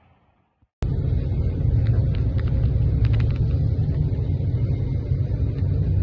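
Boat engine running: a steady, loud low rumble that cuts in abruptly about a second in, with a few faint clicks over it.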